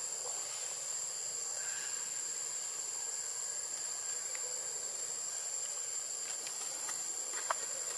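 Insects droning steadily at a high pitch, with one short click near the end.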